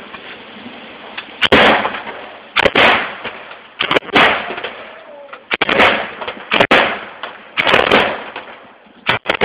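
Gunshots fired one at a time, about eight of them at irregular intervals of roughly a second, each sharp crack trailing off in a long echo.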